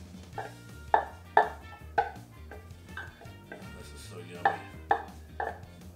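A wooden spatula scraping and knocking against a plastic food-processor bowl as chopped mushroom stems are emptied out, with a series of sharp knocks.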